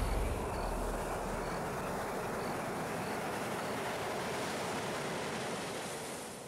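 Ocean surf sound effect: a steady rushing wash of noise that fades out near the end, with a deep rumble dying away in the first half-second.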